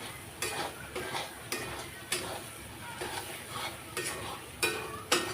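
A spoon scraping and knocking against a kadhai as chicken in masala is stirred so it doesn't stick to the bottom, a stroke about every half second, the loudest near the end, over a faint frying sizzle.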